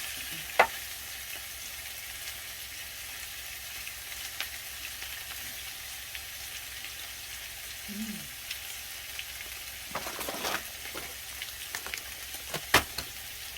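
Beef sizzling in hot oil in a pan, a steady frying hiss, with sharp clicks about half a second in and near the end and a few lighter taps in between.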